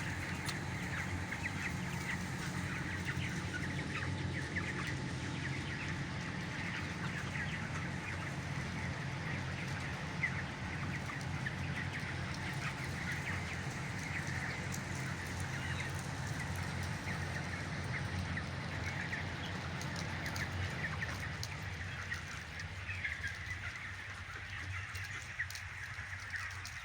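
A shed full of broiler chicks and young chickens calling all together, a dense stream of short cheeps, over a steady low hum that partly drops away about three-quarters of the way through.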